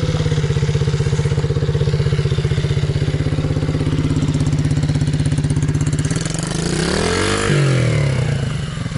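MRF pit bike's small single-cylinder four-stroke engine idling steadily. About six seconds in, the throttle is opened and the revs rise and fall back once before it settles to idle again.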